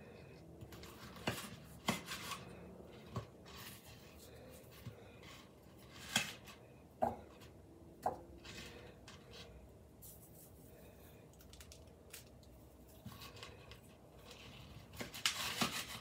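Chef's knife cutting through salt cod on a plastic cutting board: scraping cuts and scattered knocks of the blade and the pieces, with a longer rasping run of sawing cuts near the end.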